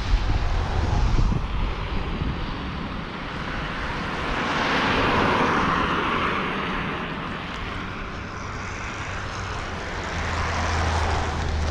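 A vehicle passing, swelling to its loudest about halfway through and then fading, with wind buffeting the microphone at the start and near the end.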